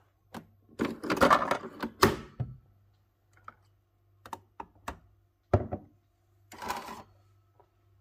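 Clicks and clattering from handling a Nespresso capsule coffee machine and a drinking glass: the machine's chrome lever lifted, and the glass taken from under the spout and set down with a thud about five and a half seconds in.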